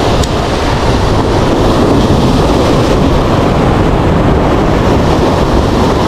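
Ocean surf breaking and washing up the beach, with wind buffeting the microphone: a loud, steady rushing noise.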